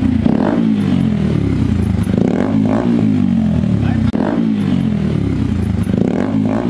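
TVS Apache RTR 160 4V's single-cylinder engine revved in repeated throttle blips through an aftermarket SC Project-style thick-barrel slip-on exhaust: loud, the pitch rising sharply and falling back several times.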